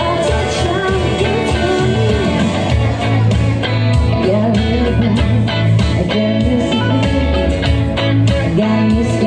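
Live electric guitar played through a small amp, with a woman singing into a microphone over it.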